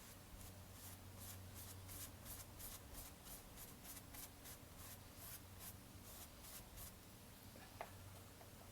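Paintbrush scrubbing acrylic paint onto canvas in quick, faint strokes, about three a second, stopping about seven seconds in.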